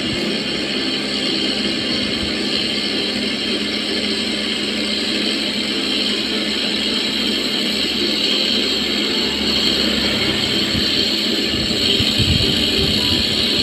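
Cotton candy machine running, its spinning head giving a steady mechanical whir while cotton candy is wound onto a stick.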